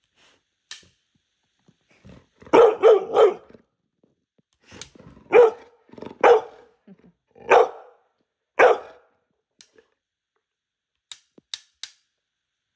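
White pit-bull-type dog barking: a quick run of three barks, then four single barks spaced about a second apart. A few sharp clicks near the end.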